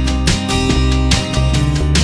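Background music led by a strummed guitar, with steady, evenly repeating strokes.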